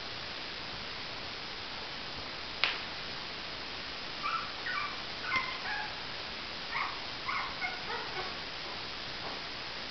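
Young puppies whimpering in short, high-pitched squeaks, a quick run of them starting about four seconds in, over a steady hiss. A single sharp click comes a little before the squeaks.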